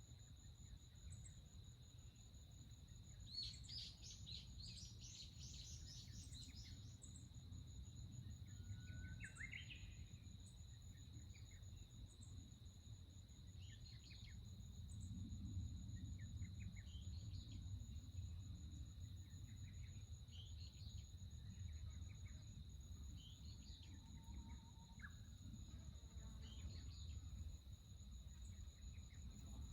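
Faint forest ambience: scattered bird chirps and calls, busiest a few seconds in, over two steady high-pitched insect trills and a low rumble underneath.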